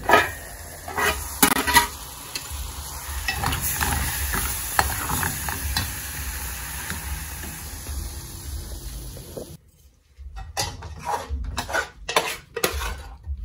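Reheated food sizzling in a hot pan while a spoon stirs and scrapes it as the food is dished up. The sizzle cuts off suddenly about ten seconds in, after which only separate knocks and scrapes of the spoon against dishes are left.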